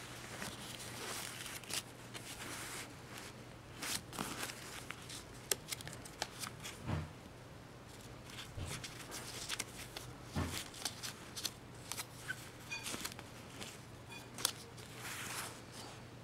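Paper care tags and parka fabric rustling and crinkling as they are flipped and handled by hand, with scattered light clicks and a few soft thumps.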